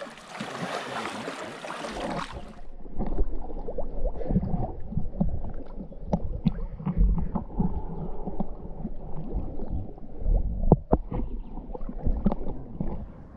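River water splashing and rushing, then, from about two and a half seconds in, a muffled low sloshing and gurgling of water with many irregular knocks and bumps.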